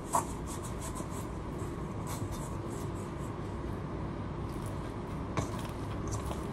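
A hand mixing and kneading dumpling dough in a stainless steel bowl: soft rubbing and scraping, with two light knocks against the bowl, over a steady low hum.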